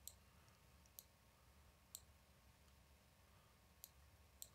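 Faint single clicks of a computer mouse, about five spread irregularly, over near-silent room tone.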